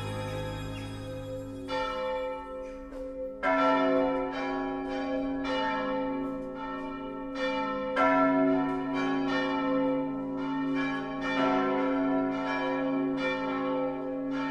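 Bells ringing in a peal, strike after strike, each ring carrying on under the next. They come in about two seconds in, as a held low music chord fades out.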